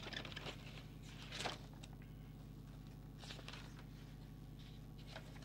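Pages of a spiral-bound printed service manual being handled and turned, a few soft paper rustles, the largest about a second and a half in, over a steady low hum.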